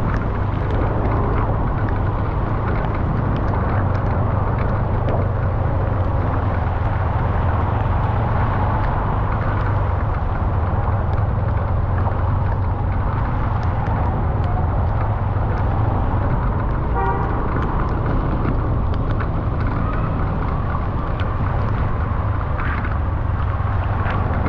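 Steady low rumble of a car driving through city traffic, with a short horn toot about seventeen seconds in.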